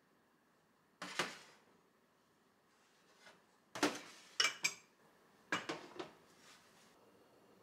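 Small glass bowls and glass measuring jugs being set down one after another on a stainless steel counter: sharp knocks and clinks, one about a second in and a quick cluster in the second half, a few with a short glassy ring.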